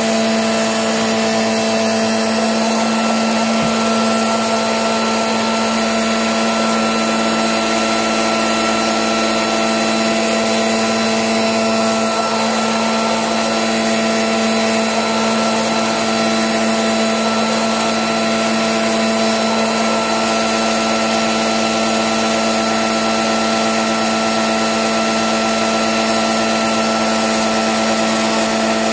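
A motor-driven machine running steadily: a loud, even whirring rush with a constant hum that never changes pitch or level.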